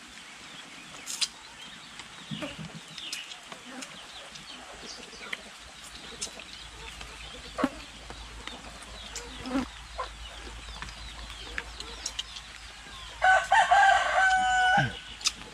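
A rooster crows once near the end, a loud call of about two seconds with stepped pitch changes, over faint scattered clicks.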